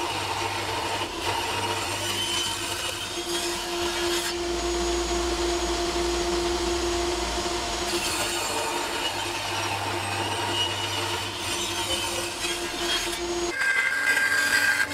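Table saw running and cutting through a laminated cedar-and-hardwood canoe paddle blank, taking the blade's cheeks down to thickness: a steady saw noise with a low hum under it. About 13.5 s in it gives way to a bandsaw cutting the blank.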